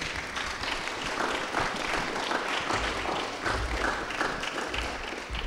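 Audience applauding: many hands clapping steadily, easing slightly near the end.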